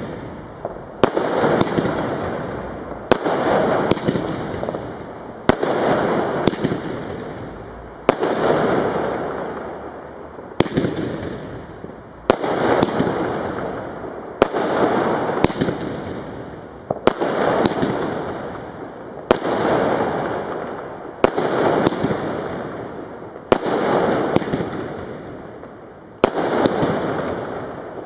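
Weco firework battery firing shot after shot, a sharp bang every one to two seconds, often two in quick succession, each trailing off in a fading rush of noise.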